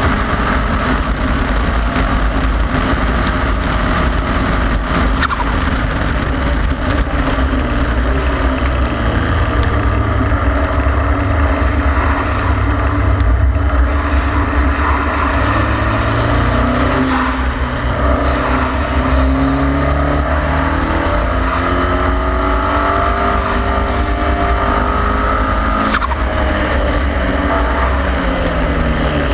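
Onboard sound of a KTM X-Bow's turbocharged four-cylinder engine at speed on a wet track. The revs ease off around the middle and then climb again several times as it pulls up through the gears. Heavy wind rumble and tyre hiss from the open cockpit run underneath.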